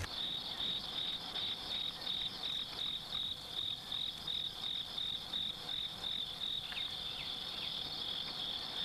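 Crickets chirping: a steady, high-pitched, pulsing trill.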